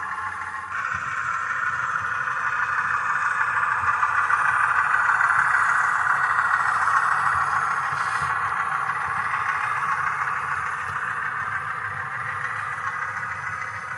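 HO-scale model diesel locomotive pulling covered hoppers along the track: a steady hum and rolling rattle from its motor, gears and wheels on the rails. It grows louder over several seconds as the train comes close, then eases off.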